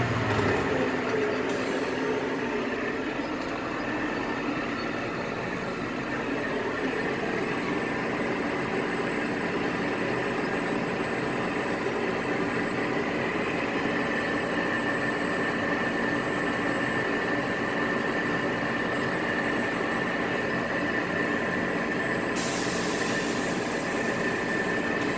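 Off-road dump truck's diesel engine running steadily, heard from inside the cab, with a steady high whine over the drone. A higher hiss comes in near the end.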